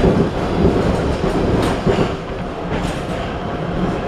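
Ride noise inside a 1983 Budd-built MTA Maryland Metro subway car running at speed: a steady rumble of steel wheels on rail, with a few sharper clacks around the middle.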